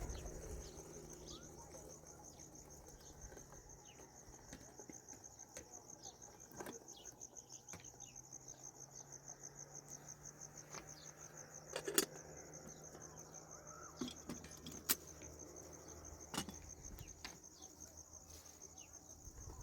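A steady, high, rapidly pulsing insect chirr, with a few sharp knocks scattered through it, the loudest about twelve seconds in.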